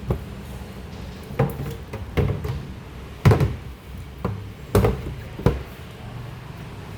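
About seven hard knocks and thuds at uneven intervals, the loudest a little over three seconds in and again near five seconds, over a low steady hum.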